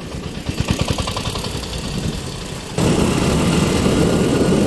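Scooter engine running while it is ridden, with wind on the microphone. About three seconds in, the sound jumps suddenly to a louder, steady rush of wind and engine.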